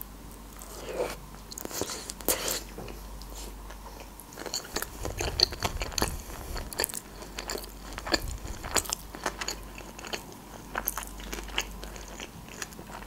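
A person biting into a sushi roll and chewing it, with many small sharp clicking mouth sounds throughout.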